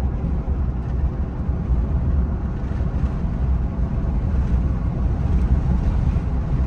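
Steady low rumble of engine and road noise inside the cab of a 2023 Ram 2500 pickup with the Cummins turbo-diesel inline-six, cruising along a highway.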